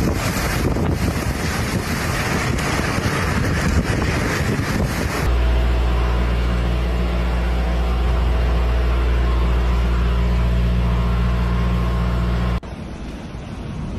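Storm wind roaring and buffeting the microphone. About five seconds in it cuts abruptly to a steady low droning hum, and near the end it cuts again to quieter wind noise.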